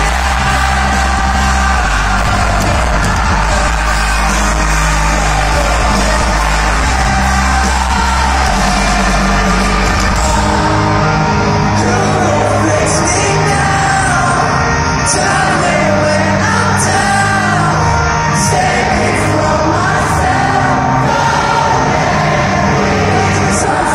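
Live rock band playing loudly with singing, heard from within a festival crowd. The heavy bass thins out about eight seconds in, leaving the singing clearer.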